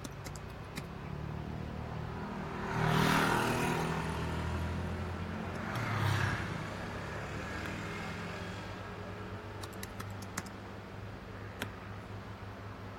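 A vehicle passing twice, the first louder, over a steady low hum, with scattered sharp clicks.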